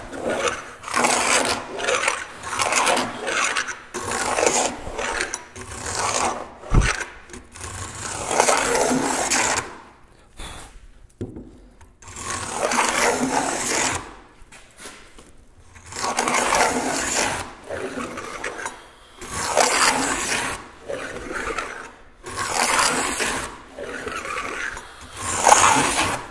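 Metal plow plane cutting a shallow groove along the edge of a wooden board, a run of rasping push strokes about a second long each, with two short pauses midway. A dull bump sounds about seven seconds in.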